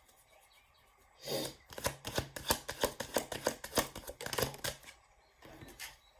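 A deck of oracle cards being shuffled and handled: a quick, dense run of snapping clicks and rustles starting about a second in and dying away near the end.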